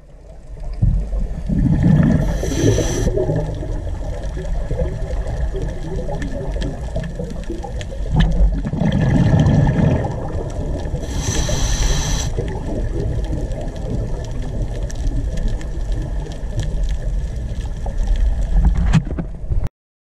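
Underwater camera sound: a steady wash of water noise with a scuba diver breathing through a regulator, twice a low bubbling rush of exhaled air followed by a high hiss of the inhale. The sound cuts off suddenly near the end.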